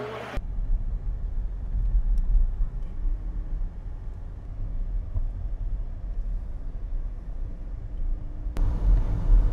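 A car driving, heard from inside the cabin: a steady low rumble of road and engine noise.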